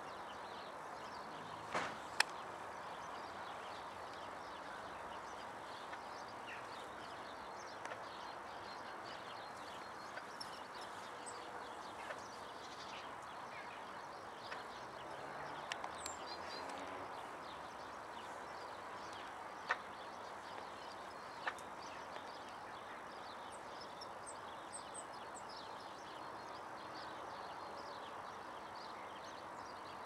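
Steady background hum with many faint, short, high chirps of distant small birds scattered throughout, and a few sharp clicks, two of them about two seconds in and two more past the middle.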